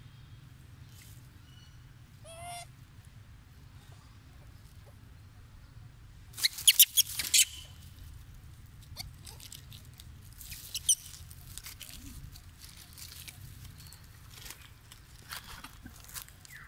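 Macaques moving over dry leaves: scattered crackling rustles, with a burst of sharp crackles about six and a half seconds in. A short squeak comes about two and a half seconds in.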